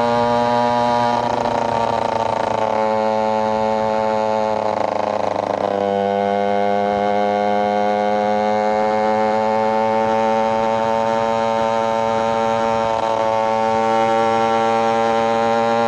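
KTM EXC 125 two-stroke single-cylinder engine running hard under way, a high, buzzy tone. The pitch drops sharply about six seconds in, as on an upshift, then climbs steadily as the bike pulls through the gear.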